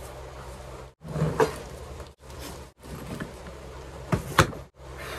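Scraping and bumping of a soft-sided wheeled suitcase being dragged out from under a bed, with two sharp knocks a little after four seconds in, over a steady low hum.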